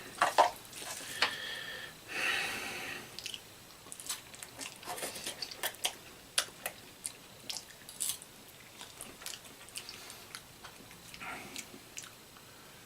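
A person eating ramen noodles: two short slurps in the first three seconds, then chewing with many small, wet mouth clicks.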